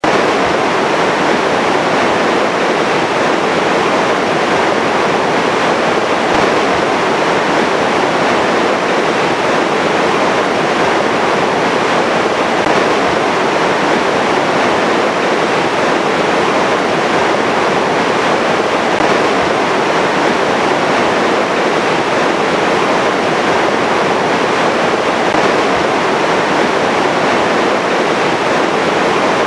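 Water pouring over a river weir: a loud, steady rush of churning white water.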